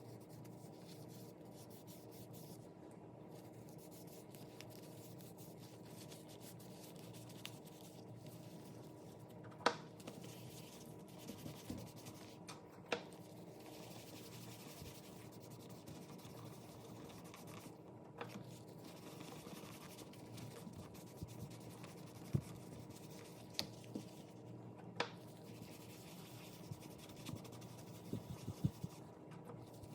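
Faint rubbing and handling of a leather wallet, as when working a leather dressing in by hand or cloth, with a few scattered light clicks and taps over a low steady hum.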